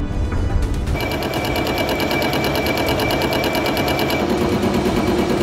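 Metal lathe turning an out-of-round crank weight with a carbide insert tool: the tool meets the uneven edge every revolution, giving a rapid, steady chattering clatter that starts about a second in.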